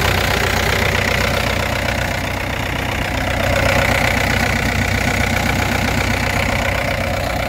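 Yanmar diesel engine of a mini excavator idling steadily, with an even diesel clatter over a low hum.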